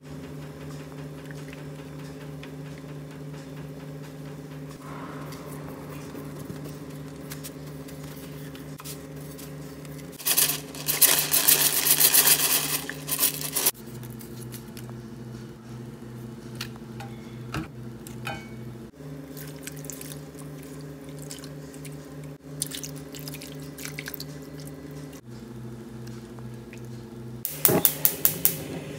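Steady low hum of a kitchen appliance while seasonings are added by hand to a stainless pan of whole fish. About ten seconds in there are a few seconds of loud rustling and crackling. Near the end comes a quick run of sharp clicks.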